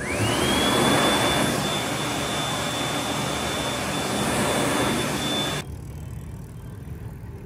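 Wall-mounted high-speed hand dryer switched on by a hand held beneath it: its motor spins up in a quickly rising whine that settles to one high steady pitch over a loud rush of air, then stops abruptly about five and a half seconds in.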